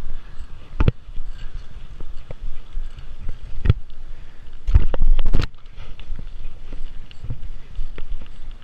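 Bicycle ride heard from a body-worn camera: a steady rumble of wind and tyre noise on the microphone, broken by sharp knocks and rattles as the bike jolts over bumps. There is a knock about a second in, another near four seconds, and the loudest cluster around five seconds.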